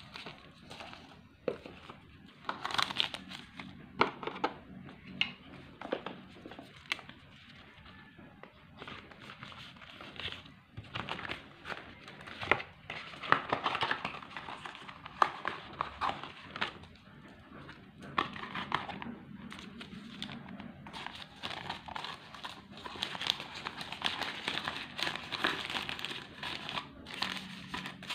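Crinkling and rustling of plastic being handled, with irregular clicks and taps.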